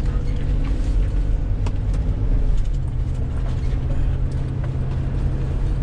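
Engine and road noise inside a moving van's cabin: a steady low drone with a few light clicks and rattles from loose things inside.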